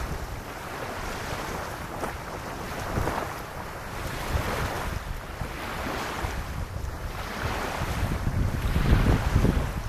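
Small waves lapping on a sandy beach, washing in every second or two, with wind buffeting the microphone as a low rumble that grows stronger near the end.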